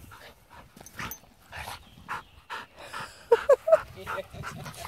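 Two dogs play-wrestling at close range: short, irregular bursts of panting, huffing and snuffling, with a few brief whining squeaks about three and a half seconds in.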